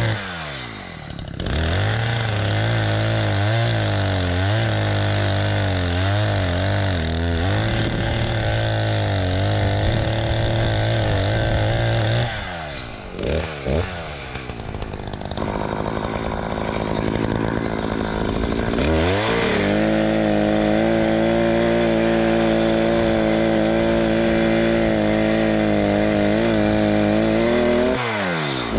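Gasoline chainsaw cutting through dry ponderosa pine logs at full throttle, its pitch wavering as the chain bites. It drops briefly near the start and again to a lower idle about midway, then revs back up for another long steady cut.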